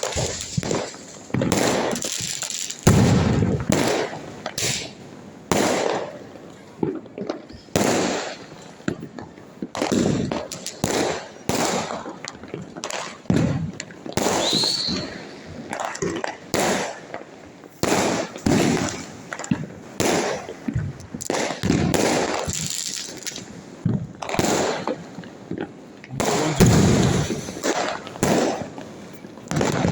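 Diwali fireworks and firecrackers going off in rapid, irregular bangs, several a second, with a short rising whistle about halfway through.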